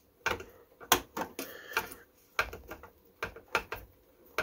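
About a dozen irregular sharp clicks and ticks as the mounting screws of an IceGiant ProSiphon Elite CPU cooler are turned down with a screwdriver.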